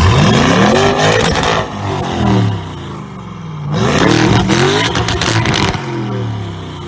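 Lamborghini Urus's twin-turbo V8 revved while standing, heard through a titanium Fi Exhaust cat-back with 200-cell sport downpipes. Two rev-ups, the first followed by a short blip, each dropping back to idle.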